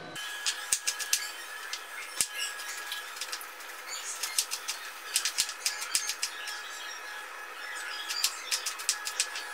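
Kitchen knife slicing cucumber into strips on a plastic cutting board: quick runs of light taps as the blade meets the board, in several bursts with short pauses between.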